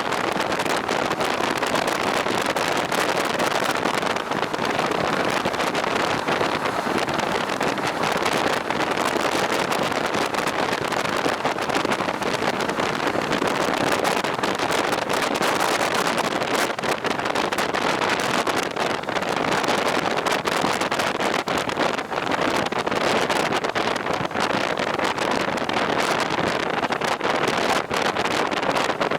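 Steady rush of riding wind over the microphone on a moving motorcycle, with road and engine noise blended into an even roar that does not change.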